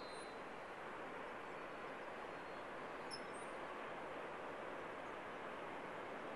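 Steady wash of distant breaking surf heard from a hilltop, with a few faint high bird chirps, one near the start and two about three seconds in.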